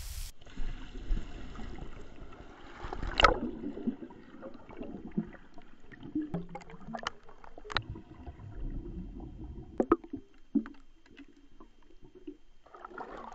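Underwater recording of a swimmer: muffled water movement and bubbling with scattered sharp clicks and knocks, the loudest about three seconds in. It ends with a brief brighter splash-like burst and cuts off suddenly.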